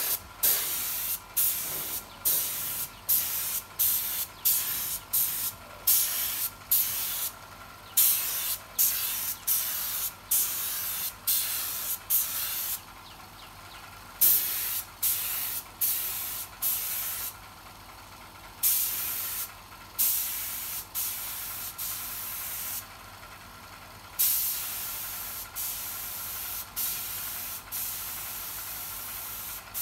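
Compressed-air spray gun hissing in short bursts, one or two a second, with a few pauses of about a second, as finish is sprayed onto carved wood. From about three quarters of the way through it sprays in longer, steadier passes.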